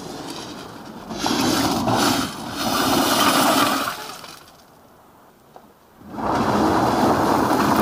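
A car's wheels spinning in loose beach pebbles and flinging stones, in two long surges with a lull between: the car is stuck in the pebbles.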